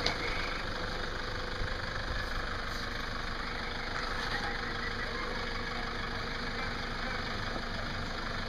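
Off-road 4x4 vehicle engine idling and running slowly at a steady pace as the vehicle creeps over rocks on a trail.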